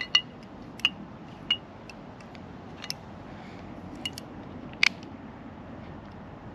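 A series of about six sharp clicks and light taps, a few seconds apart, the loudest a quick double click near the end: a headlamp's push button being pressed to switch the lamp to its red light, with small items handled before it.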